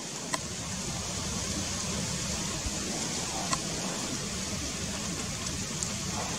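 Steady wind noise rushing over the microphone outdoors, with a couple of faint ticks.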